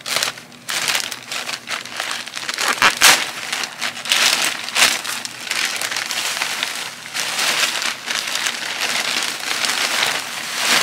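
Plastic mailer bag crinkling and rustling as it is handled and opened, with louder crackles about three and five seconds in.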